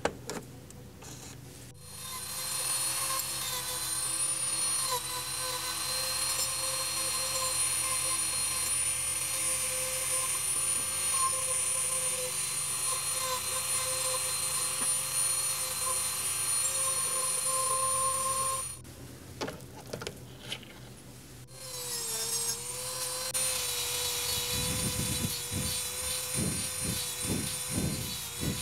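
Handheld rotary tool running with a steady high-pitched whine as it grinds the metal body of a die-cast toy tractor. The motor stops for a few seconds past the middle, then starts again, and near the end a cutting disc is pressed against the metal in short repeated strokes.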